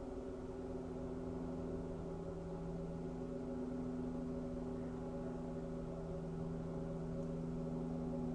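A steady drone of several low held tones, gong-like in character, sustained evenly without strikes or pauses.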